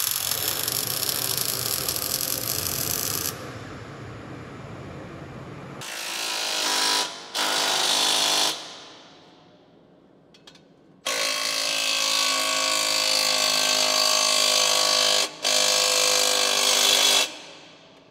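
Power tool running in several bursts of a few seconds each, winding down after each one, during the fitting of a truck exhaust system.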